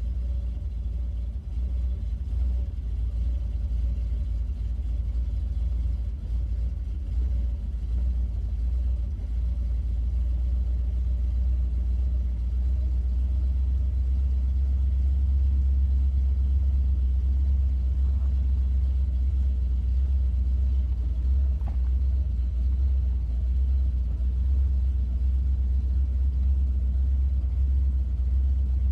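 Ford Mustang engine running steadily with a deep, even rumble that changes little in pitch or level.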